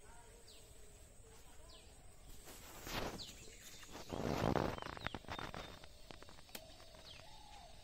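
Feet sloshing and squelching in shallow mud and water, with two louder splashy swells in the middle, the second the loudest, over birds chirping.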